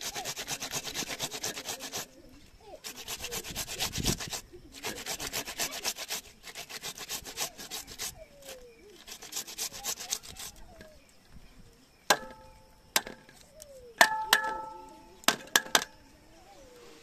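Rapid, rhythmic scraping strokes, several a second, in runs with short pauses, for about ten seconds. Then, from about twelve seconds in, a handful of sharp metal clanks that ring briefly, typical of pots or metal utensils being knocked.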